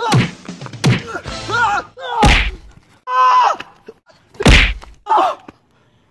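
Fight sounds: sharp punch and whack impacts, the two heaviest about two and four and a half seconds in, between short shouted grunts and yells.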